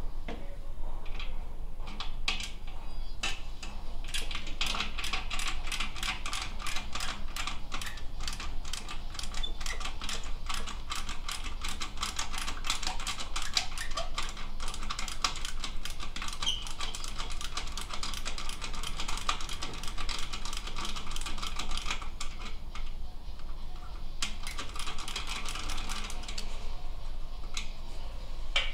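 Hand ratchet wrench clicking in quick runs as it turns the muffler mounting bolts on a Harley-Davidson Dyna. It starts with a few scattered clicks, then gives a long stretch of fast clicking, a short pause, and another run near the end.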